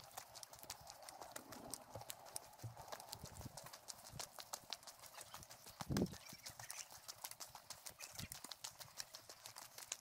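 Faint, irregular crunching and clicking steps on a gravel trail, several a second, with one louder thump about six seconds in.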